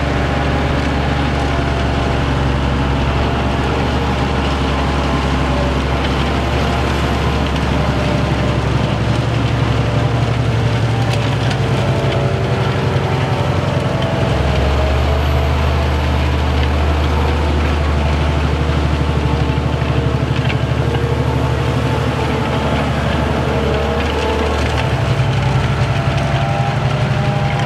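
Fendt 1050 Vario tractor's six-cylinder diesel running steadily under heavy load while it pulls a Farmet Softer 11 disc harrow, with the rushing crackle of the discs cutting through the soil. The engine note shifts twice, about halfway through and again near the end.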